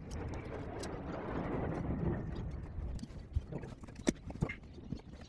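Rustling and scraping as a part is handled and pulled away, followed by several sharp clicks and knocks.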